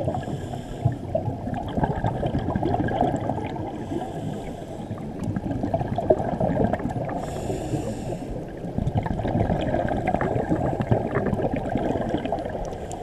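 Scuba diver's regulator breathing heard underwater through a camera housing: a muffled rumble of water with a fine crackle, and a hiss of breath about every three and a half seconds.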